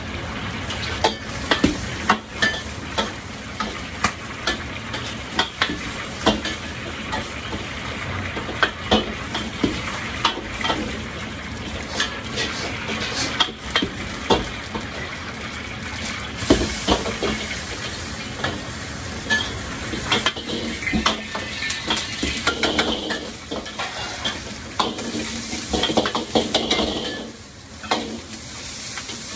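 Stir-frying in two steel woks: oil sizzling around eggplant and around noodles being crisped, with frequent sharp metal clanks and scrapes as a ladle and spatula strike and stir in the woks.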